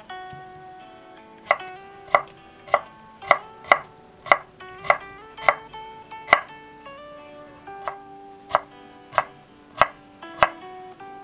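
Kitchen knife dicing carrot strips on a wooden cutting board: a steady series of sharp knocks, roughly two every second, with a short pause about two-thirds of the way through. Soft instrumental background music plays underneath.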